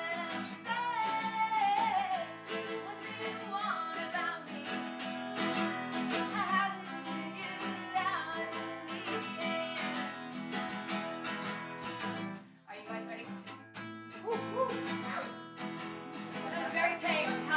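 Live acoustic music: a strummed acoustic guitar with a sung melody over it. The music dips briefly about twelve seconds in, then picks back up.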